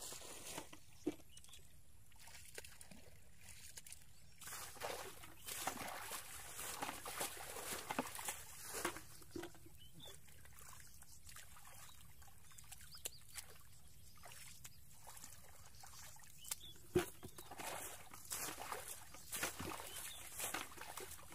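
Splashing and sloshing in shallow muddy water as fish are grabbed by hand from the mud and flap about. The splashing comes in irregular spells with quieter gaps, with a few sharp knocks among them.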